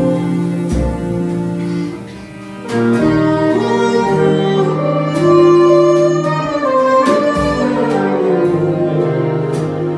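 Live chamber-jazz ensemble playing: violin, cello and double bass with clarinet and bass saxophone over a few drum hits. The music dips briefly quieter about two seconds in, then comes back fuller.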